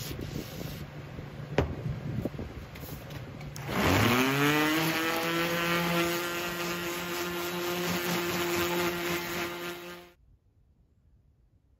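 Electric sander wet-sanding a steel tomahawk head with 1200-grit paper. About four seconds in, its motor spins up with a quickly rising whine and then runs at a steady pitch, stopping abruptly around ten seconds in. Before the spin-up there is a rougher, noisier sanding sound with a sharp click.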